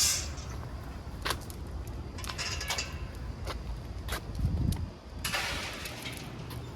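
Outdoor street ambience on a walk: a steady low traffic rumble, broken by several sharp clicks, two short hissy rustles and one low thud.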